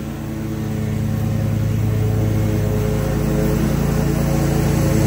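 Zero-turn riding mower's engine running steadily while mowing grass, getting louder as the mower comes closer.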